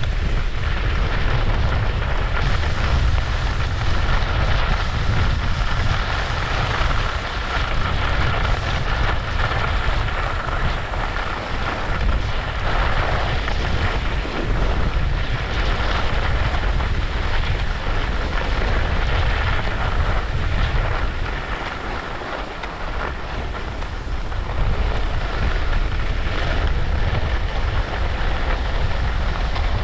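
Wind buffeting the microphone of a camera worn by a skier descending a groomed piste, a steady rumble with the hiss and scrape of skis running over packed snow. It eases a little for a few seconds about two-thirds of the way through.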